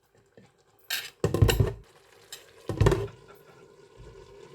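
Utensil clattering and scraping against a cooking pan in two bursts, about a second in and again near three seconds, then a faint steady sizzle of the bean curry cooking starts near the end.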